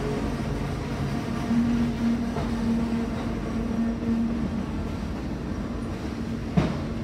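Freight train flatcars rolling past, a steady rumble of wheels on rail with a held hum through the middle, and a single sharp knock near the end.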